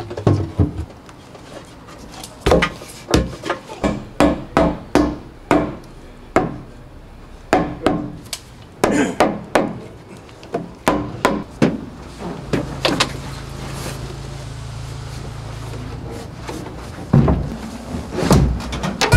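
Rubber mallet knocking a PVC port tube into a wooden subwoofer box: a long run of irregular knocks, a pause of about five seconds, then a few more knocks near the end.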